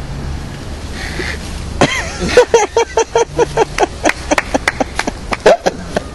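A woman laughing hard: a quick run of short, high-pitched bursts, about four a second, starting about two seconds in, over a low outdoor rumble.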